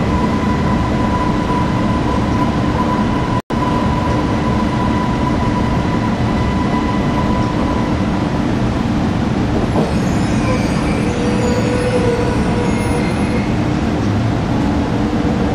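Steady cabin noise inside a Beijing Subway Line S1 medium-low-speed maglev train pulling in to a stop at a station: a constant rushing hum with a few steady tones running through it. The sound cuts out for a split second about three and a half seconds in.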